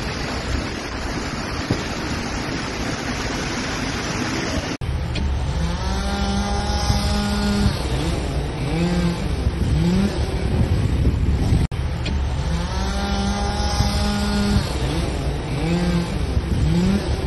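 Heavy rain falling on a street for the first few seconds. After a sudden cut, a small engine runs and revs up and down again and again in uneven bursts.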